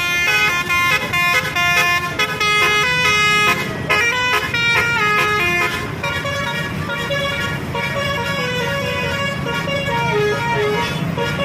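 Tourist bus's multi-tone telolet horn playing a melody in stepped notes: quick short notes for the first few seconds, then longer held notes, over a low engine rumble.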